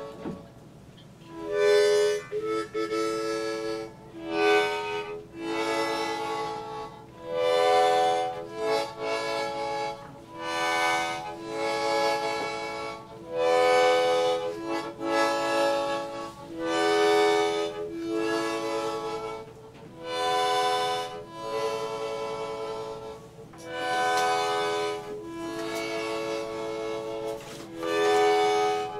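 Harmonica playing a slow tune of long held notes, each lasting a second or two with short breaks between them.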